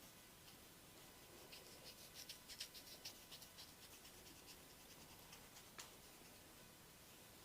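Near silence with faint scratching and rubbing of hands on skin and hair, close up: a quick run of soft scratches in the middle and a single sharper click near the six-second mark.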